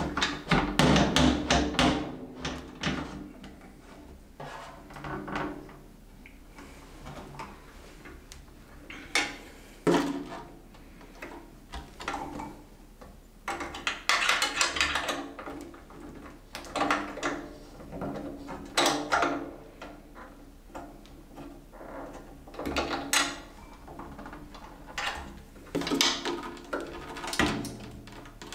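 Irregular clunks, knocks and rattles of drum-kit hardware being handled and adjusted, stands and mounts loosened, moved and tightened.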